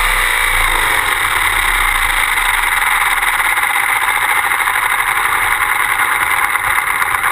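Electric RC helicopter (Align T-Rex 600EFL Pro) spinning down on the ground: a falling whine from the motor and gears fades out in the first second, under a steady rushing noise as the main rotor slows.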